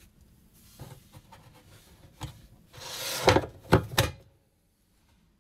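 A plastic cover being handled and pressed into place over an opening in a wooden cabinet floor. There is a scraping rub, then three sharp knocks within about a second.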